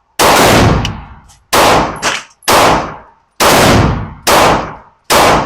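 Six pistol shots from a Smith & Wesson M&P 2.0 handgun, fired at a steady pace of about one a second, each loud crack dying away over about half a second.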